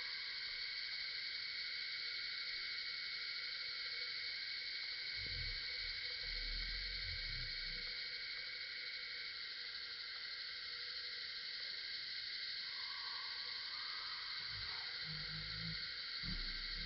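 Forest night-time ambience: a steady, high, shrill insect chorus that does not change. About three-quarters of the way through, a fainter mid-pitched call lasts about two seconds. There are a few low rumbling knocks.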